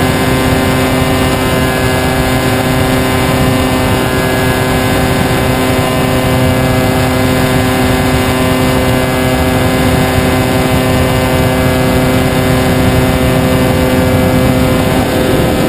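Radio-controlled model airplane's motor and propeller running at a steady speed, a constant hum of several pitches over rushing noise, shifting slightly in pitch near the end.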